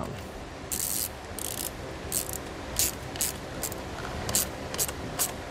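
Hand ratchet with a 10 mm socket tightening a battery terminal nut, the pawl clicking in short bursts on each back-stroke, about every half second.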